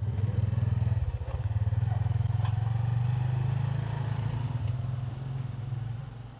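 A vehicle's engine running and then pulling away, its low rumble fading out near the end. Crickets chirp steadily throughout.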